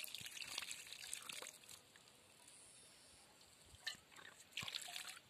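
Faint water poured from an enamel mug over hands, trickling and dripping onto the ground, dying away after about a second and a half. Near the end, a click and a few short splashes as the mug is dipped into a shallow pool.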